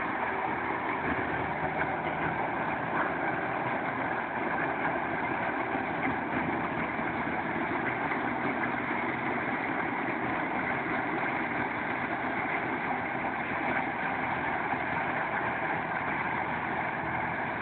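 Rice combine harvester's engine running steadily.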